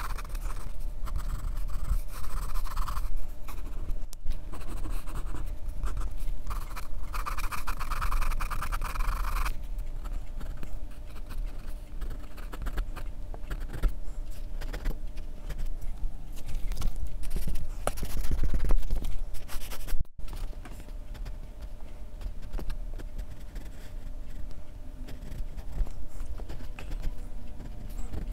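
Pencil scratching on drawing paper in many short sketching and shading strokes. It sounds brighter for about the first ten seconds, then duller.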